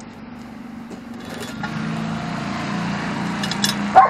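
A go-kart's small engine running steadily, growing louder about a second and a half in. A few light metallic clinks come near the end, and a dog barks once right at the end.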